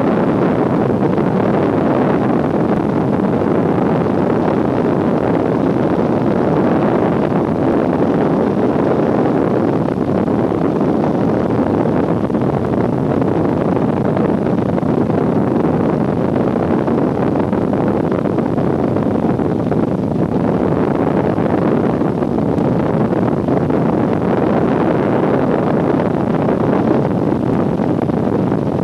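Airliner cabin noise in flight: a steady, even rush of engine and airflow noise with no change.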